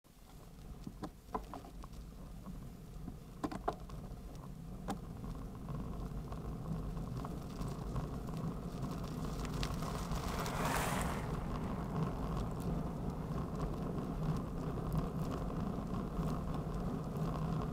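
Steady wind and road rumble on a bicycle's handlebar-mounted camera while riding, with a few sharp clicks in the first five seconds. An oncoming car passes about eleven seconds in, its tyre and engine noise swelling and fading.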